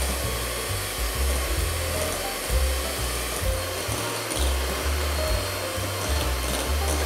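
Electric hand mixer running steadily, its twin beaters whisking eggs and milk in a glass bowl, with a continuous motor whir.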